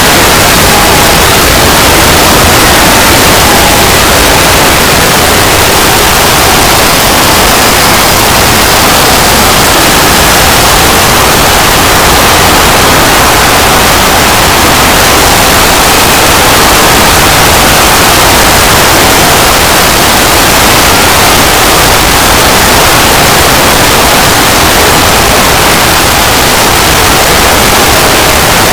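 Very loud, steady static-like noise that fills the whole range from deep to high and never lets up, with a few faint steady tones buried in it: an extended logo sound effect made of harsh noise.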